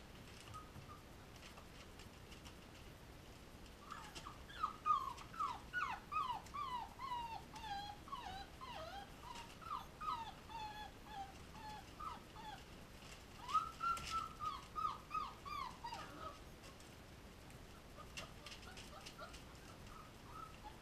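Young puppies whimpering: a run of short whines, each sliding down in pitch, two or three a second. They start a few seconds in, pause briefly, carry on until about three-quarters of the way through, and a few fainter ones come near the end.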